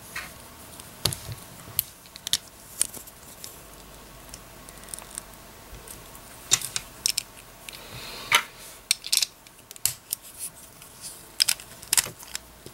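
Hand-held parts of a Hades Kerbecs BD145DS Beyblade, metal fusion wheel and plastic pieces, being fitted together: many small, irregular clicks and taps.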